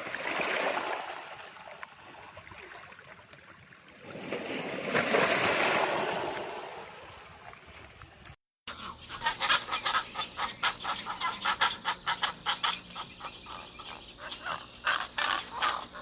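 A rushing, breathy noise that swells twice, then after a cut a flock of waterfowl calling in a rapid, dense chatter of quacks and honks.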